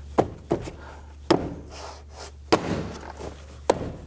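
Plastic interior door panel of a Toyota Camry being struck by hand against the door shell, about five sharp knocks at irregular intervals as its retaining clips snap into place.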